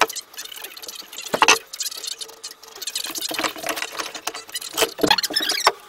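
Carpenter's pencil scratching and ticking as it is drawn around a steel axe head onto the end of a wooden handle, with a couple of knocks as the wood and steel are handled on the workbench.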